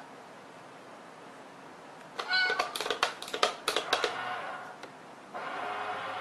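Cat coin bank toy: a short meow and a quick run of sharp clicks and taps about two seconds in as a cat paws at the box, then a steady whir starting near the end as the toy's lid begins to lift.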